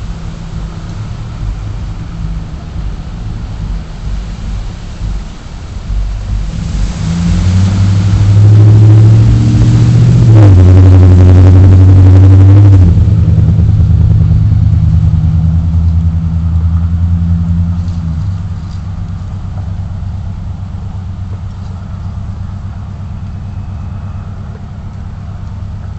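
A motor vehicle engine running over a steady low hum, growing louder about a quarter of the way in, at its loudest for several seconds with a drop in pitch partway through, then fading back down.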